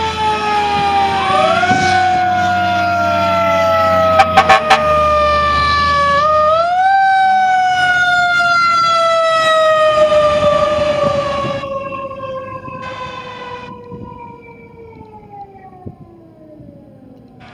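Fire truck's mechanical Federal Q siren winding up twice, then coasting down in a long falling wail that fades away toward the end. A few short, loud blasts about four seconds in.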